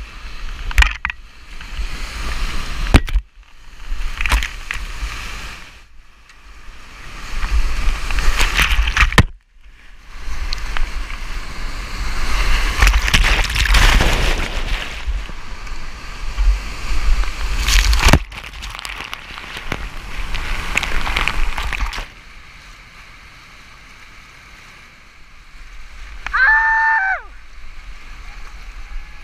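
Whitewater rushing and splashing around a kayak in a river at high flow. It comes in several loud stretches that cut off abruptly, then settles into a quieter, steady rush. Near the end a short high-pitched call rises over the water.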